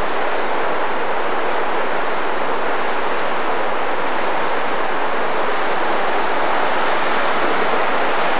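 Mountain river rapids rushing over rocks: a steady, unbroken whitewater noise.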